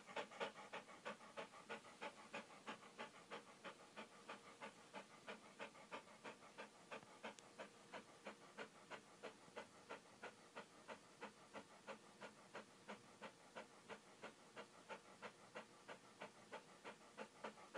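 A dog panting rapidly and evenly, about three faint breaths a second.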